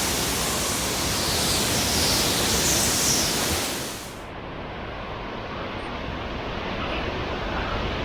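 Hurricane wind and rain, a loud, steady rushing hiss. About four seconds in it cuts abruptly to a quieter, duller stretch of the same storm noise.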